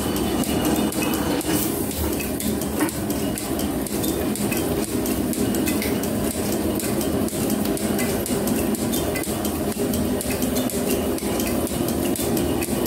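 Metal planer running, its table carrying a steel bar past the cutting tool as it planes the bar's flame-cut edge: a steady mechanical hum with rapid metallic clicking and clatter from the drive, without a break.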